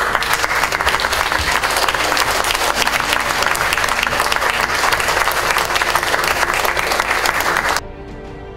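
Audience applauding: a dense, steady clatter of many hands clapping that cuts off abruptly near the end, leaving soft background music.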